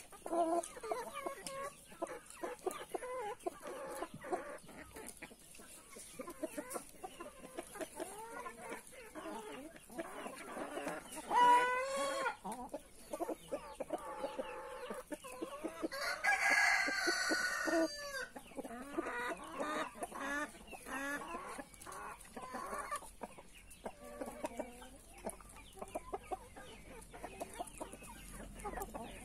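Brahma chickens clucking while they feed. About eleven seconds in one gives a short, loud squawk, and at about sixteen seconds a rooster crows for about two seconds, the loudest sound here.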